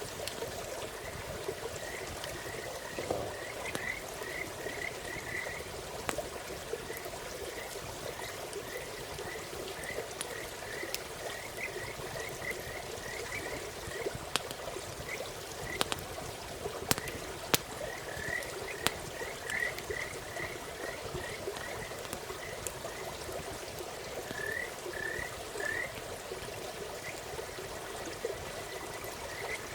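Frogs calling in runs of short, quick, high notes, several a second, over a steady low background. A few sharp crackles from a campfire come in the middle.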